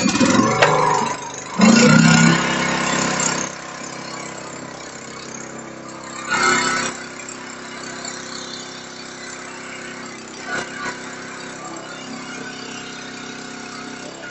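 Small petrol engine running loud for the first few seconds, then settling to a steady idle, with a couple of brief louder swells.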